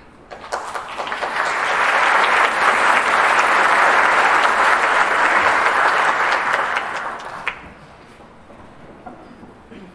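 Theatre audience applauding as the tenor soloist walks on stage. The applause swells over the first two seconds, holds, then dies away about seven and a half seconds in.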